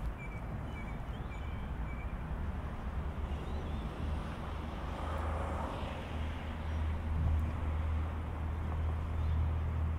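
Outdoor street ambience: a steady low traffic rumble, with a vehicle swelling past about five to six seconds in.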